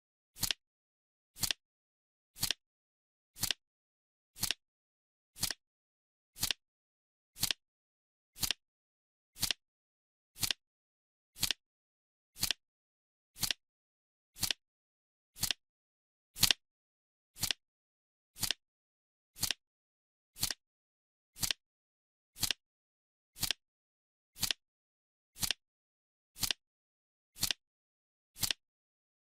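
Clock ticking sound, one sharp tick every second, steady and even.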